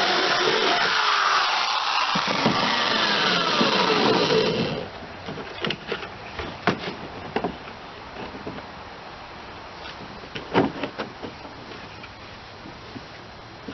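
Power drill running against the kayak's plastic deck, its pitch sliding down as it works, then stopping sharply about five seconds in. After that, scattered light knocks and clicks of tool and plastic handling.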